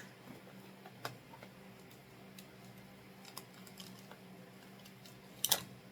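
Light clicks and taps of hard lightsaber hilt parts being handled and fitted together, with a louder click about a second in and a sharper pair of clicks near the end.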